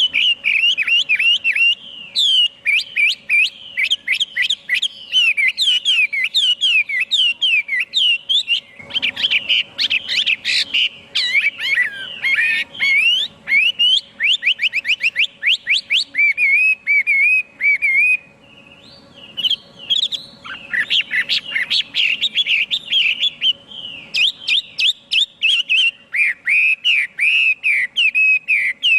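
Chinese hwamei singing a long, varied song of rapid whistled phrases with quick up-and-down glides, broken by a brief lull about eighteen seconds in.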